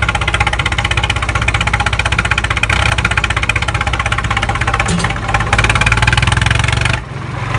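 Tractor engine idling with a fast, even chug; the sound dips briefly near the end.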